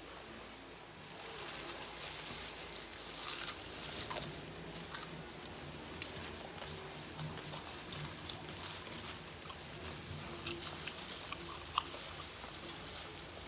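Crinkling of a clear plastic glove and crackling of crispy fried chicken being torn apart by hand, with chewing. There are scattered small clicks, and a sharper one midway and another near the end.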